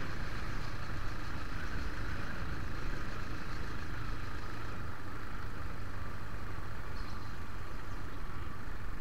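Steady engine and road noise from a vehicle on the move: an even low rumble with a hiss above it, unchanging throughout.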